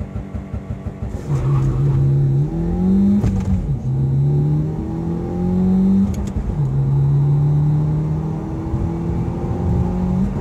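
A 2015 Subaru WRX's turbocharged FA20 flat-four, heard from inside the cabin. It holds steady revs with a stuttering sound for about the first second, then accelerates at full throttle through the gears. The pitch drops and climbs again three times as it upshifts.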